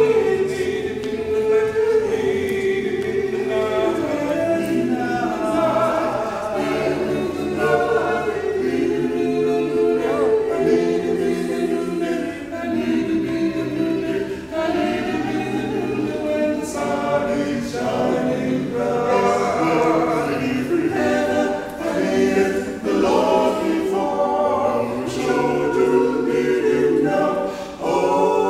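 Male vocal quartet singing a gospel hymn a cappella, four voices in harmony with long held notes and no instruments.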